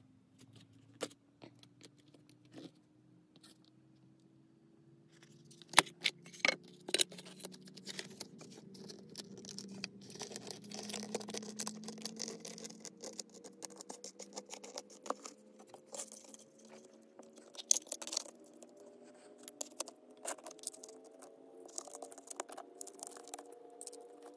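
Thin wooden puzzle pieces clicking, tapping and scraping as they are handled, set down and fitted into a wooden tray on a textured mat, in rapid irregular clicks that grow busier after about five seconds. A faint hum slowly rising in pitch runs underneath.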